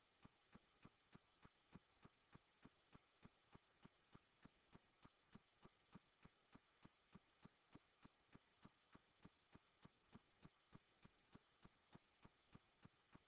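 Near silence with a faint, regular ticking, about three ticks a second, over a low hiss.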